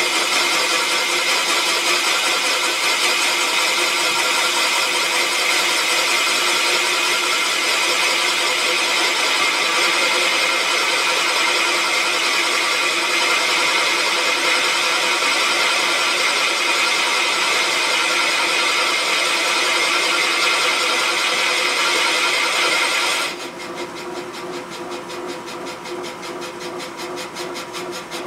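A Serdi valve-seat machine spins a 90-degree carbide cutter, boring the cast-iron pocket for a hardened exhaust valve seat insert in a Pontiac 455 head. The cutting makes a loud, steady, high-pitched whirring grind. Near the end it drops suddenly to a quieter, evenly rhythmic running sound.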